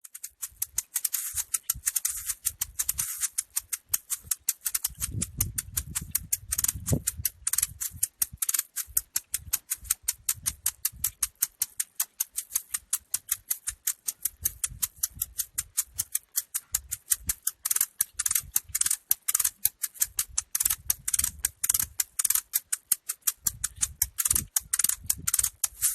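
Maracas shaken in a steady, fast rhythm, each shake a short crisp rattle of seeds or beads.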